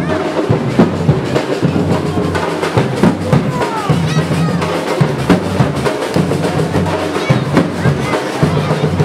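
Music driven by drums, bass drum and snare hits packed closely together over a steady low accompaniment, with voices heard over it.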